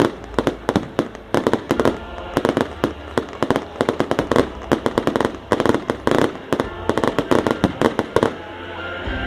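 A rapid, irregular string of sharp bangs, several a second, that stops about eight seconds in.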